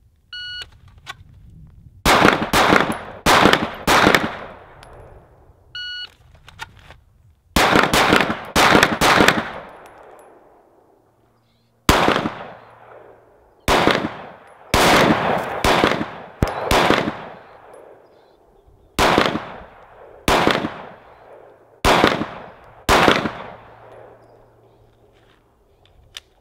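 Pistol shots fired in quick strings of two to five, each with a ringing tail, about eight strings in all. A short high beep sounds just before each of the first two strings.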